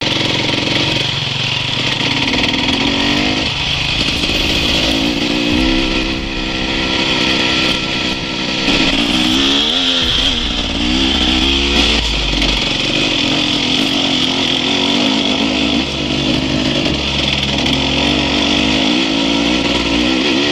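Enduro dirt bike engine running under load while riding off-road, its revs rising and falling again and again as the throttle is worked over rough ground, with a steady high hiss over it.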